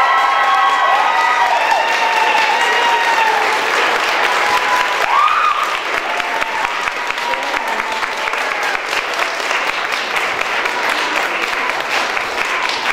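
A crowd applauding steadily, with a few voices calling out over the clapping in the first few seconds.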